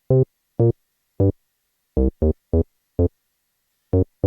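Roland TB-03 bass synthesizer sounding short single notes one at a time, about eight at uneven intervals with silence between, as notes are keyed into a pattern step by step in pitch mode.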